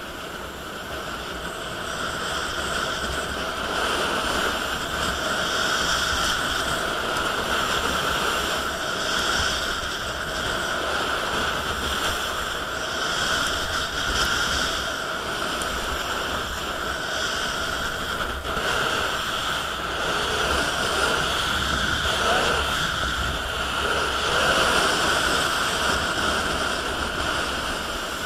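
Rushing wind on a skier's body-worn camera mixed with the hiss of skis sliding over packed snow during a downhill run, swelling and easing as the skier turns and gathers speed.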